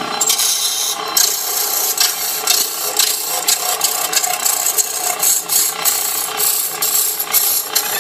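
A chisel cutting into a block of wood spinning on a belt-driven wood lathe: rough, irregular scraping and rasping bursts as the tool bites, over the steady hum of the lathe's electric motor.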